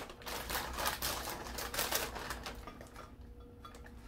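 A plastic bag of vanilla wafers crinkling and rustling as it is opened and cookies are pulled out, in a run of quick crackles and clicks that quiets near the end.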